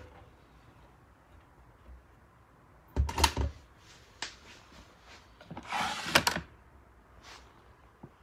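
Miele W2573 front-loading washing machine door closing with a heavy thud and latch click about three seconds in. A second, longer noisy clatter of handling follows around six seconds.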